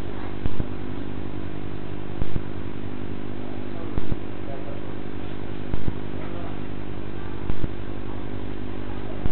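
Steady electrical hum with a sharp click that repeats evenly, about every second and three-quarters, typical of the noise on a CCTV recorder's audio track.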